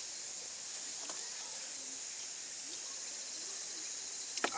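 Steady high-pitched insect chirring, as of crickets, with a single sharp click near the end.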